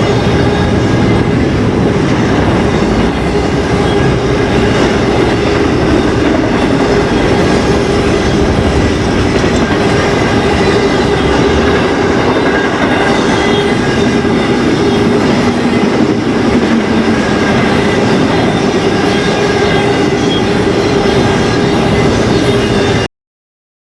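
BNSF intermodal stack train's cars rolling past on the rails, a loud steady rumble of wheels on track with a steady tone running through it; it cuts off suddenly near the end.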